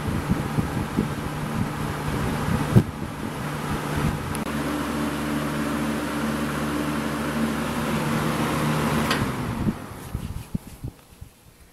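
Electric box fan running, a steady motor hum under rushing air; about four and a half seconds in the hum shifts, and near ten seconds in the sound drops away, followed by a few light clicks.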